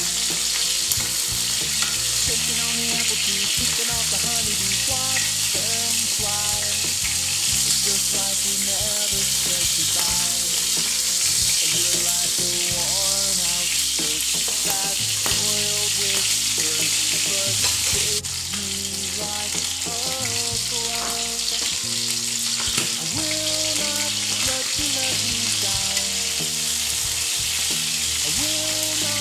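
Frog legs sizzling as they shallow-fry in hot oil in a flat pan, a steady crackling hiss. Instrumental background music plays underneath.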